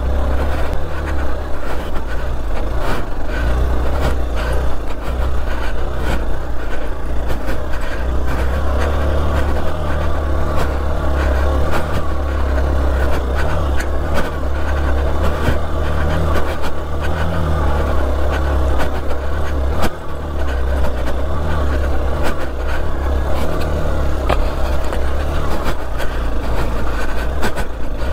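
Hero XPulse 200 4V's single-cylinder engine running as the motorcycle is ridden along a rough off-road trail. A loud low rumble runs under it, with scattered knocks and rattles throughout.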